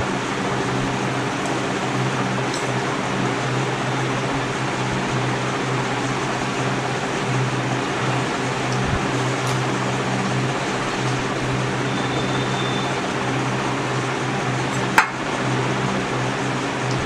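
Steady whir of a fan motor running, with a constant low hum under an even rushing noise. A single sharp click near the end.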